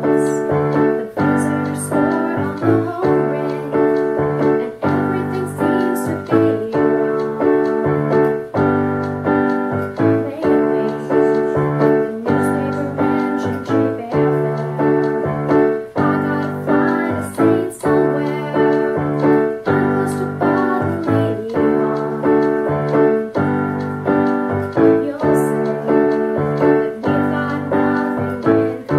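Portable electronic keyboard played with a piano voice: chords struck in a steady repeating rhythm over held bass notes.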